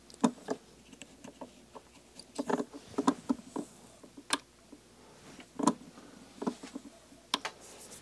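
Scattered light clicks, taps and rustles of hands working at a fly-tying vise, wrapping thread onto the hook and handling tying materials, with a few sharper clicks among them.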